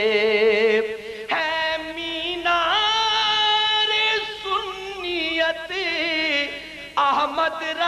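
A man singing an Urdu manqabat solo into a microphone, with long held notes, heavy vibrato and melismatic turns between the words of the refrain. Brief breaths break the line about a second in and again near the end, where a new phrase begins.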